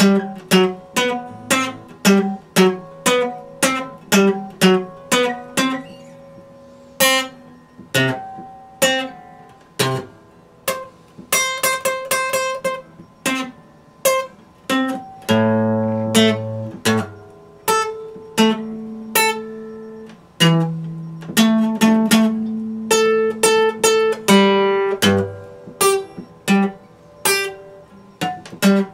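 Epiphone acoustic guitar played solo, plucked note by note at about two notes a second, each note ringing out. Through the middle stretch it moves to longer, held, ringing chords.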